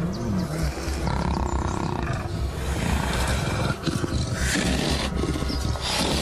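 Big cats growling continuously, with background music underneath.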